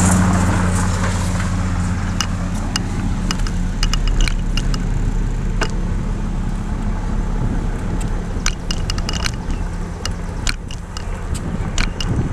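Steady hum of a motor vehicle's engine on the street, fading out about nine seconds in, with many irregular light clicks and rattles from a bicycle rolling along the road.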